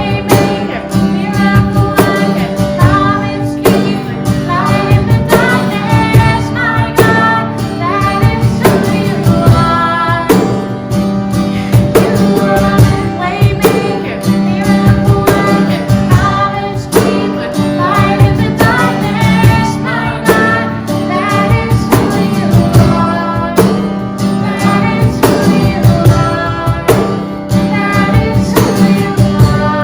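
Live church worship band playing a song with singing over a steady beat.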